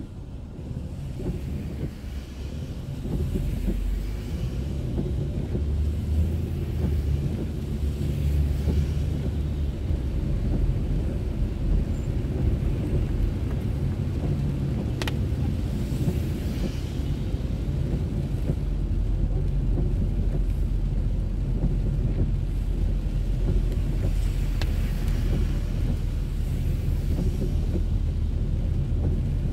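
Car on the move heard through a dashboard drive recorder inside the cabin: a steady low rumble of road and engine noise that grows louder over the first few seconds, with a single sharp click about halfway through.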